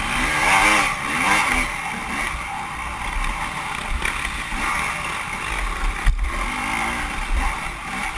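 Off-road motorcycle engine revving up and down as the rider works the throttle, over steady rushing noise, with one sharp knock about six seconds in.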